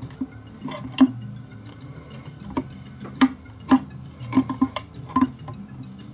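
A dozen or so irregular sharp clicks and clinks, the loudest about a second in, from a woofer's metal frame and its mounting hardware being handled as the driver is seated in a particleboard speaker cabinet.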